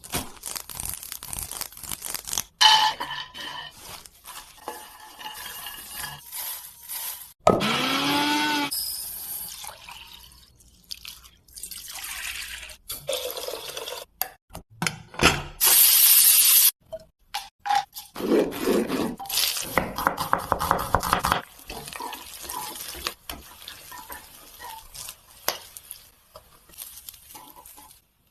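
Kitchen cooking sounds: running water and utensils and pots clinking and scraping, in a string of separate short sounds with a loud burst of noise about halfway through.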